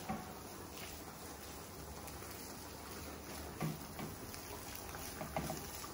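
Shredded confit duck meat with onion and shallot sizzling steadily in a frying pan as it is stirred with a silicone spatula, with a couple of faint knocks of the spatula.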